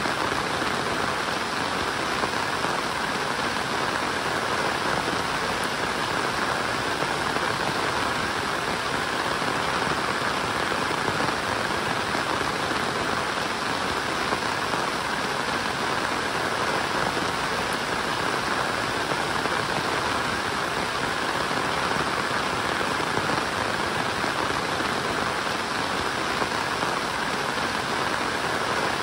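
Steady rainfall, an even hiss with no breaks or distinct events.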